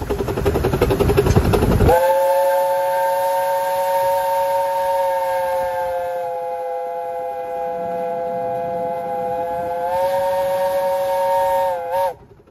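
Steam locomotive chime whistle. About two seconds of loud rushing hiss, then a chord of three steady notes sounds for about ten seconds, wavers briefly near the end and cuts off.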